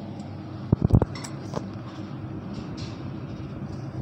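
Steady low rumble of city traffic heard from high up through an open window, with a quick cluster of sharp knocks and clinks about a second in.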